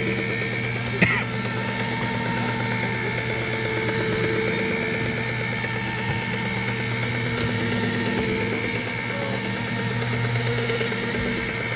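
Electric motor of a small machine running steadily at an even speed, with a sharp click about a second in.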